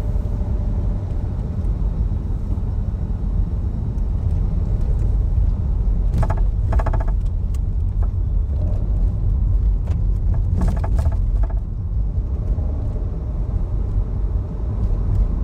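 Car cabin road rumble from driving slowly, heard from the front passenger-side floor, with two short bursts of rattling about six and eleven seconds in: the intermittent noise the driver is hunting, which seems to come from in front of the passenger-side floor.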